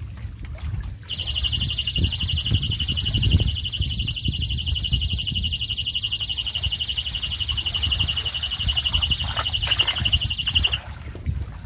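Fishing bite alarm sounding one continuous high, buzzing beep for about ten seconds, starting about a second in and cutting off near the end: a fish has taken the bait and is pulling on the rod. Low wind and wave noise runs underneath, with splashing in the shallows near the end.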